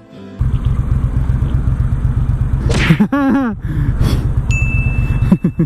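Triumph Bonneville T120 1200 cc parallel-twin running with a loud, low exhaust rumble, cutting in about half a second in. A brief voice is heard about three seconds in, and a steady high beep lasts about a second near the end.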